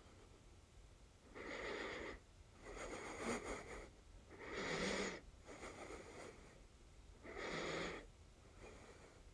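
A person breathing heavily and roughly close to the microphone, about six breaths in and out at intervals of a second or so.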